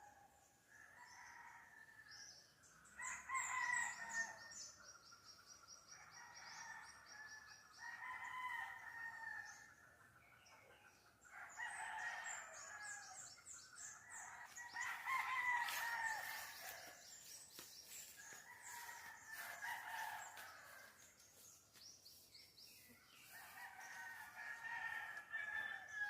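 Roosters crowing again and again, each crow about two seconds long, with small birds chirping in quick high trills between and over the crows.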